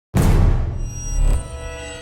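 Dramatic intro music hit: a deep boom that starts suddenly, with sustained ringing tones slowly dying away and a second low swell just over a second in.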